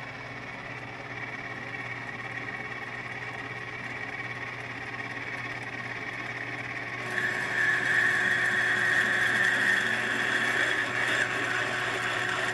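Metal lathe running steadily while an 11/16-inch drill bit bores out the centre of a snowmobile drive clutch. About seven seconds in, the cutting gets louder, with a steady high whine from the bit in the metal.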